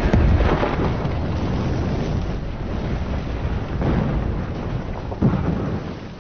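A truck explodes in a deep, rumbling blast right at the start. The fire then burns with a steady noisy rush, and there is another thud a little past five seconds in.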